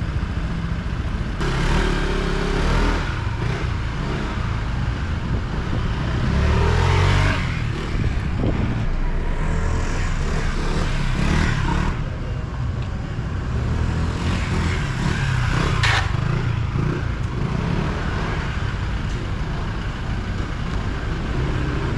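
Honda ADV 160 scooter's single-cylinder engine being ridden and revved in short wheelie runs, swelling louder twice, over a steady low rumble.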